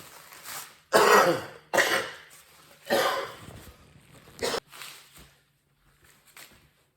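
A person coughing: three loud coughs about a second apart, then a shorter one a little later.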